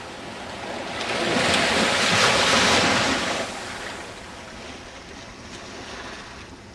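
Gulf surf: a wave breaking and washing up, swelling about a second in, loudest at around two to three seconds, then fading to a steady wash.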